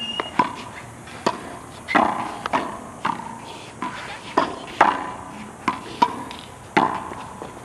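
Racquetball play: about a dozen sharp hard pops of a rubber ball struck by racquets and bouncing off concrete court walls, at irregular intervals, each with a short echo.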